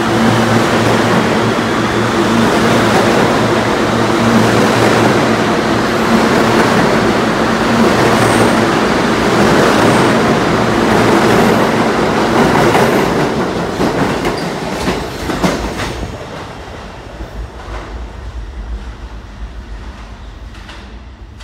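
New York City subway train running past a station platform: a loud, steady rumble with a low hum, then wheels clacking over the rail joints as the last cars go by, fading over the last few seconds.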